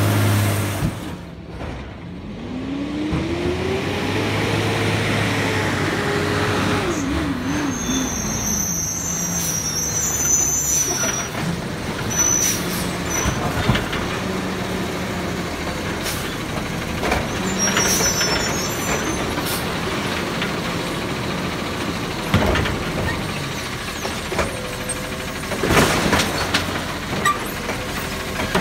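A Peterbilt 520 garbage truck with a Labrie Automizer side-loader arm. Its air brakes release with a hiss, then its engine revs up as the truck pulls forward and eases back to idle. It runs on while the automated arm grabs a cart, with scattered clanks and a loud knock near the end as the cart is lifted.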